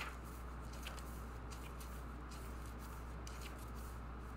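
Pages of a small paperback guidebook being leafed through by hand: faint, scattered paper rustles and flicks over a steady low hum.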